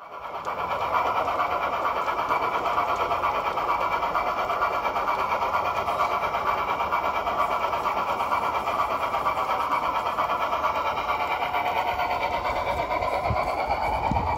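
Large-scale Bachmann narrow-gauge model steam locomotive and its passenger cars running on garden railway track: a steady rolling and whirring of metal wheels on the rails and the drive, with a few low thumps near the end.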